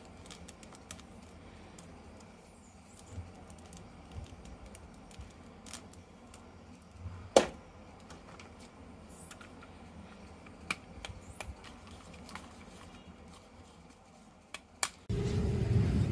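Faint, scattered small clicks and knocks of plastic toy figures and packaging being handled, with one sharper click about seven seconds in. Music starts abruptly about a second before the end.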